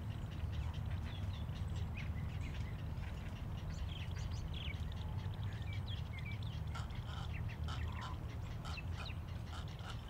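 Nesting waterbirds in a colony calling: many short, scattered squawks and chatters over a steady low rumble.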